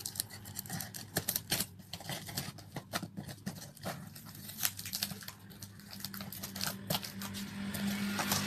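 A cardboard shipping box being opened by hand with a box cutter: irregular crackles and clicks of cutting tape and handling cardboard and packing, over a faint steady low hum.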